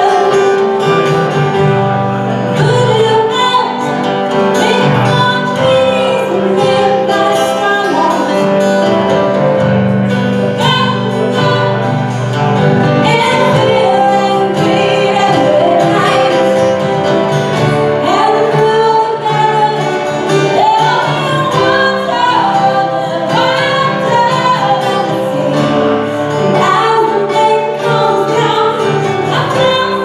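Live band playing a song, a woman singing lead over guitars and keyboard.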